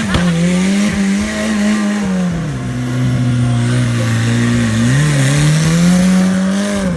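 Off-road vehicle engine running hard and revving. Its pitch drops about two and a half seconds in, climbs back up over the next few seconds, and falls again near the end.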